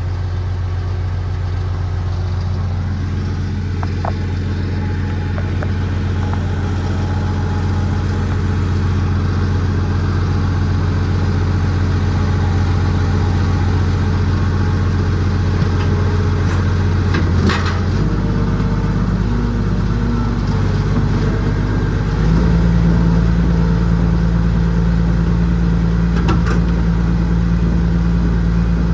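A diesel engine running steadily. Its speed shifts about 18 seconds in and picks up, louder, around 22 seconds. A sharp clack sounds about 17 seconds in and a fainter one near the end.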